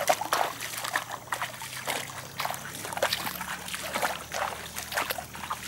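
Footsteps wading through shallow floodwater: irregular splashing and sloshing, about three steps a second.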